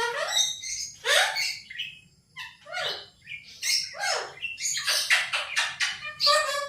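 Pet parrot calling and chattering: a string of short squawks and chirps, several sliding down in pitch, with a quick run of clicking chatter about five seconds in.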